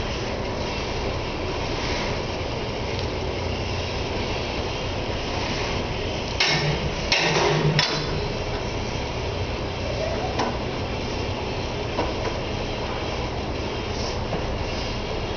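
Weight-room ambience: a steady noise, with a short cluster of sharp knocks about six and a half to eight seconds in.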